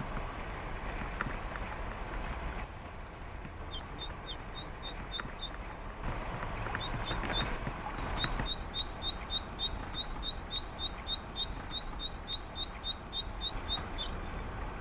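Male zitting cisticola singing its 'hi-hi-hi' song: a long run of short, sharp, high notes. A few notes come about four seconds in, then a steady series of about four a second runs to near the end, over the steady hiss of rain.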